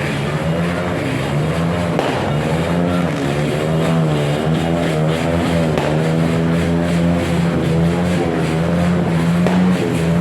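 A loud, steady motor drone with a slowly wavering pitch.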